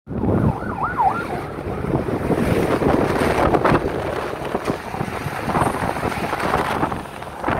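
Wind buffeting the microphone of a phone on a moving motorcycle, over the rumble of the bike and passing street traffic. A brief warbling tone sounds about a second in.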